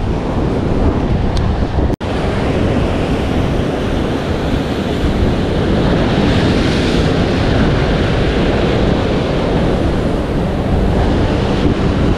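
Heavy sea surf breaking against a rocky shore, with wind buffeting the microphone throughout. The sound cuts out for an instant about two seconds in.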